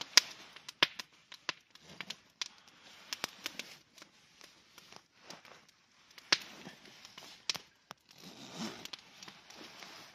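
Campfire crackling, with irregular sharp pops and snaps from the burning wood.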